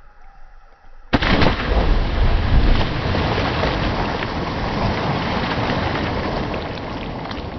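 Water splashing and churning in a pond, starting suddenly with a big splash about a second in and carrying on as a steady rush that slowly tails off.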